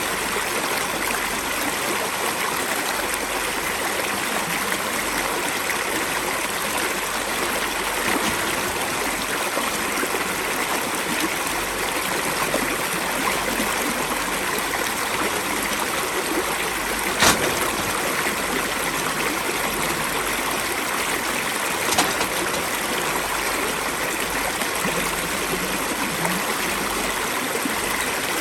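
Steady rushing of flowing water, like a stream, with two brief sharp knocks in the second half.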